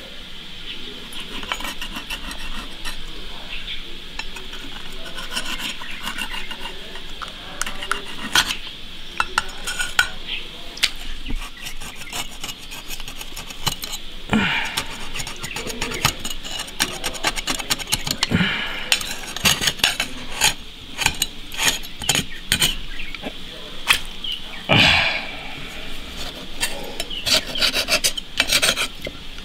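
Oyster shells being scrubbed and rubbed together: steady rasping scrapes broken by frequent sharp clicks of shell on shell, with a few louder strokes.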